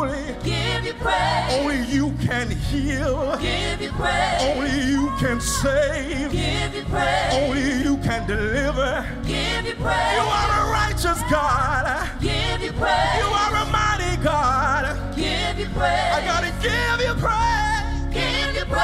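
Live gospel music: a male lead singer with a backing vocal group, over a band of keyboard, guitars and drums playing continuously.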